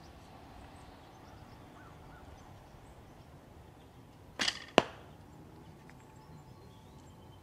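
A traditional wooden longbow shot: a short burst of string noise as the arrow is released about four seconds in, then about a third of a second later a sharp smack as the arrow strikes the target.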